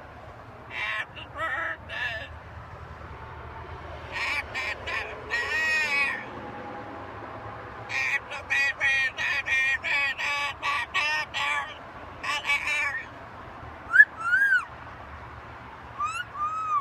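Green-winged macaw chattering and babbling in bursts of short, rough, pitched calls. Near the end come two short calls that rise and fall in pitch.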